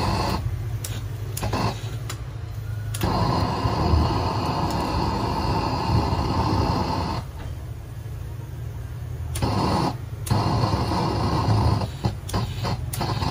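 A Petromax 827 mini kerosene pressure lantern being lit: sharp clicks of a lighter, then from about three seconds in a steady hiss of the burner flame for about four seconds before it drops away. Near the end come more clicks and shorter hisses as the lighter is brought back, over a low steady rumble.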